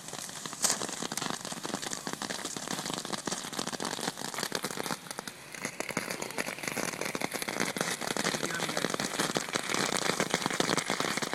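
Small tank-shaped novelty ground firework spraying sparks with a dense, steady crackling hiss. There is one sharp pop less than a second in, and the crackle grows slightly louder toward the end.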